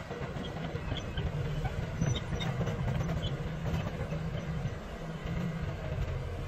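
Caterpillar hydraulic excavators' diesel engines running under load, a steady low rumble with scattered light clicks as the machines work.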